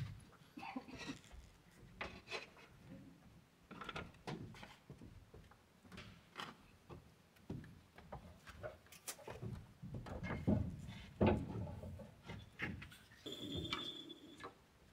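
Irregular knocks, clinks and scrapes of roof work as curved clay roof tiles and buckets are handled and set down on the wooden roof battens, busiest toward the last third. A brief high steady tone sounds near the end.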